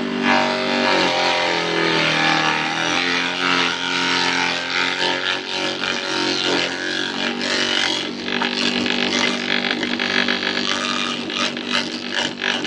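Small wooden-box chopper machine driven by an electric motor, running with a steady droning hum while it shreds plant material. Its pitch sags and recovers once, about a second or two in, as the feed loads the motor.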